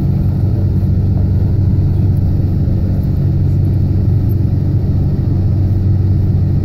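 Steady low rumble of a moving bus's engine and road noise, heard from inside the passenger cabin.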